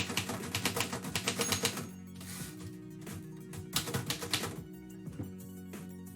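Typewriter keys struck in quick runs, with a break of about two seconds in the middle and a few single strokes near the end, over steady background music.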